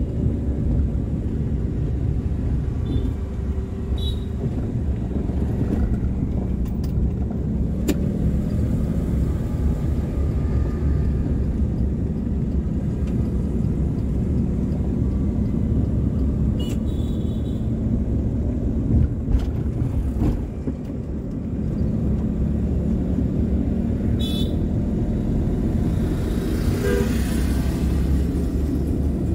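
Car driving on city roads: a steady low rumble of engine and tyres, with a few faint clicks now and then.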